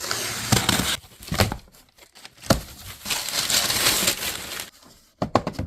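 Crinkling and rustling of handled packaging, in bursts, with a knock about two and a half seconds in and a quick run of clicks near the end.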